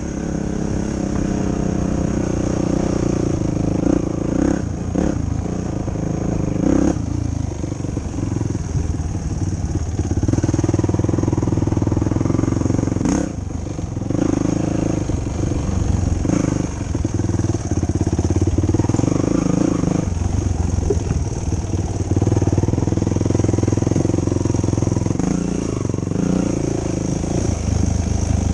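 Yamaha YFZ450 quad's single-cylinder four-stroke engine running as it is ridden along a trail, its pitch rising and falling with the throttle, with a few knocks over the rough ground.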